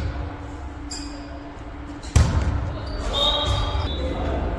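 A volleyball bouncing once on the hardwood gym floor about two seconds in, with the echo of a large hall, amid players' voices and brief high squeaks.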